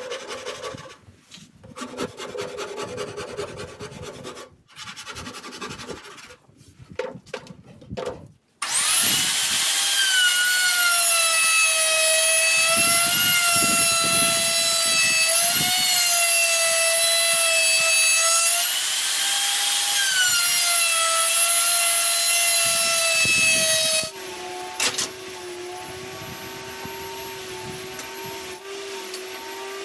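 Wood being worked by hand, with irregular scraping and rubbing strokes, for the first eight seconds or so. Then an electric power tool starts up, its motor whining at a high, steady pitch that sags slightly now and then, and cuts off about 24 seconds in. A quieter, lower steady hum follows.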